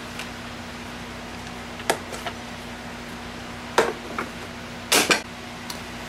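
A handful of short clicks and knocks of hard plastic as a Ryobi 18-volt battery pack is handled and seated in its mount. The loudest is a double knock near the end, over a steady low hum.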